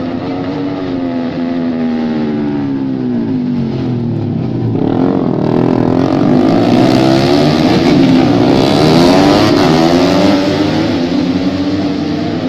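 Several tuned racing motorcycles running at high revs, their engine notes falling and rising together as they shift and go by. The engines grow louder and more layered about five seconds in, then ease off slightly near the end.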